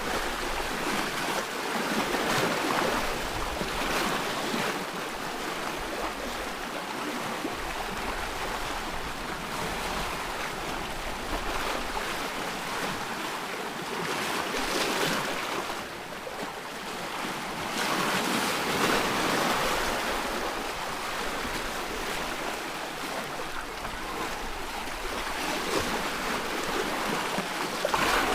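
Ocean waves breaking and washing on a shore, a continuous rushing surf that swells and ebbs every few seconds.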